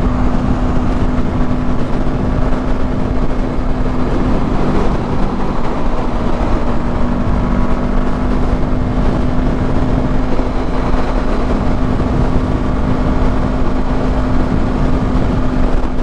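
Motorcycle engine running at a steady cruise, with a constant drone and wind rush on the mic while riding.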